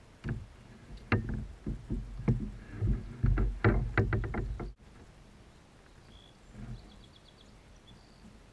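A run of knocks and thumps against a kayak hull while a freshly landed largemouth bass is handled in the boat, then they stop abruptly. Faint bird chirps follow a few seconds later.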